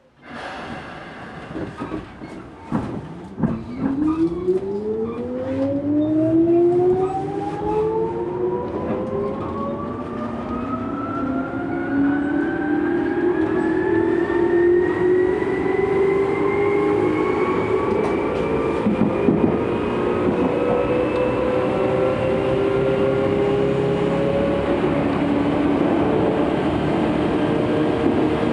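Tokyu 8500-series electric train pulling away: its traction motors whine, several tones rising together in pitch as it accelerates and then levelling off into a steady run. A few clicks and knocks come as it starts moving.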